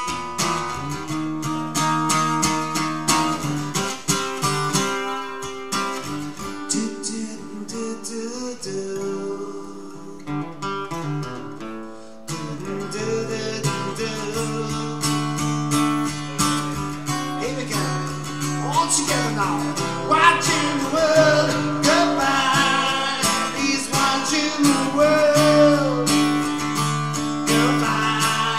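Live music led by a strummed acoustic guitar. It dips for a moment about ten to twelve seconds in, then comes back fuller, with a man singing over it in the second half.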